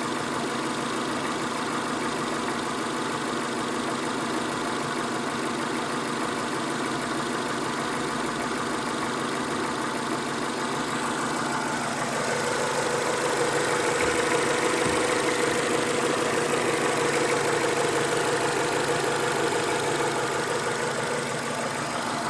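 Renault Mégane II engine running warm at idle, the revs raised a little about halfway through and held, then dropping back near the end. Under it a dull knocking that the owner puts down to piston slap.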